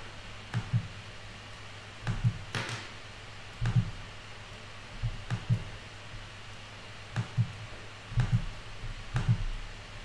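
Scattered soft computer-keyboard clicks and light thumps, about a dozen, irregularly spaced, as stock charts are switched, over a low steady hum.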